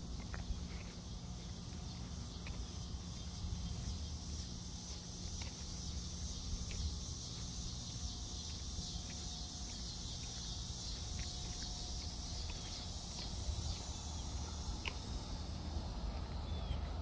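Steady high-pitched chorus of insects, weakening near the end, over footsteps on a concrete sidewalk.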